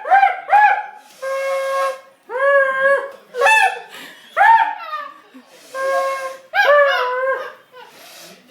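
A string of loud honks, roughly one a second. Some are short with a rising start and falling end, others are held as longer steady tones.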